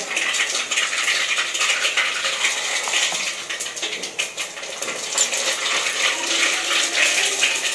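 Mustard and cumin seeds sizzling and spluttering in hot oil for a tempering (vaghar), a steady dense crackle full of small pops.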